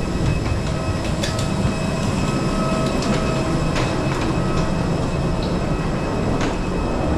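Hard-shell suitcase wheels rolling along a jet bridge floor, a steady rumble mixed with footsteps, over a faint steady hum; a few sharp clicks stand out.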